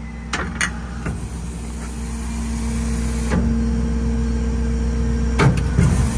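Ford F-550's 6.7-litre Power Stroke diesel V8 idling with a steady hum. A few sharp clicks and knocks come through, the loudest two near the end.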